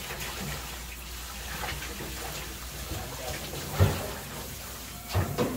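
Pan of noodle water boiling hard on a gas burner, bubbling and frothing. A heavy knock comes a little before four seconds, and a few more knocks near the end.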